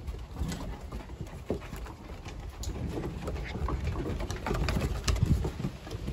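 Seven-week-old German Shepherd–Husky mix puppies play-growling and scuffling, with many sharp clicks of claws on wooden decking.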